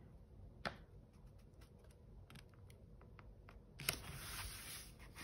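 Paper card being handled on a desk: a sharp tap a little over half a second in, a few faint clicks, then paper rustling and sliding from about four seconds in.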